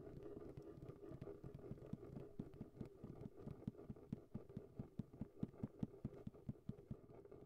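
Faint quick taps, about five a second, starting about two seconds in and stopping near the end: homemade footstep sound effects for small characters walking.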